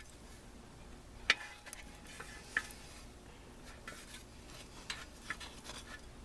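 Light, scattered clicks and taps of metal 4L60E transmission parts being handled, the sharpest about a second in.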